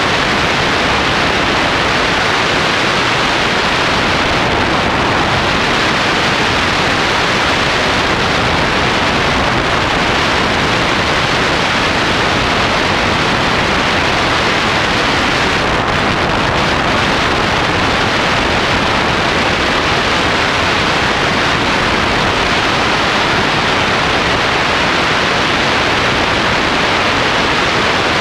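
Steady, loud rush of wind over the microphone of a camera mounted on a hang glider in flight.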